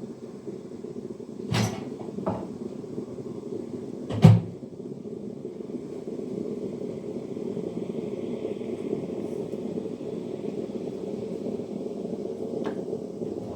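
Kitchen knocks during coffee making, over a steady low hum: two sharp knocks about 1.5 and 4 seconds in, the second louder, a faint hiss in the middle and a small click near the end.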